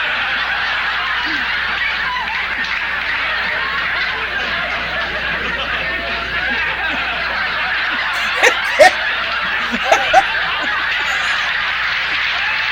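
Studio audience laughing, one long unbroken wave of laughter. A few sharper, louder sounds stand out around eight and a half to ten seconds in.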